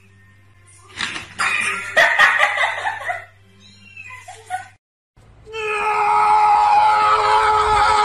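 A kitten meowing several times over a low steady hum. After a brief silence about five seconds in, loud music with held notes takes over.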